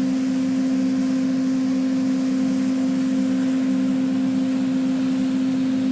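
Steady mechanical hum: one strong unchanging tone with a fainter overtone, holding an even level throughout.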